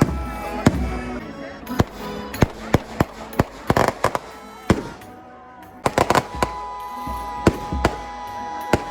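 A dozen or so sharp bangs and cracks at irregular intervals, with a louder, noisier burst about four seconds in, over music.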